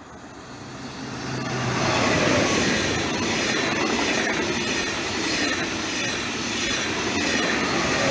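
A Ouigo TGV Duplex double-deck high-speed train passing close by on the rails. Its noise builds over the first two seconds, then holds loud and steady as the coaches and the rear power car go by.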